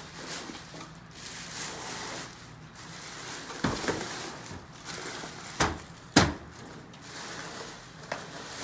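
Handling noises on a table: light rustling with three sharp knocks, the loudest a little after six seconds in.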